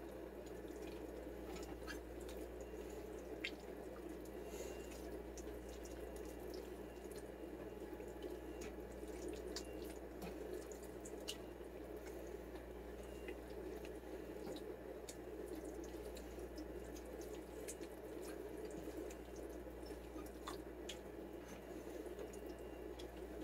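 A spatula stirring a thick, creamy chicken-and-rice mixture in a stainless steel pan: a quiet, steady wet squelching with a few faint clicks of the spatula against the pan.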